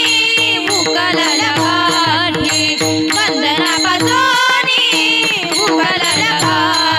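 A woman singing a Marathi Varkari kirtan melody in long, ornamented, gliding phrases over a steady held drone from the accompaniment.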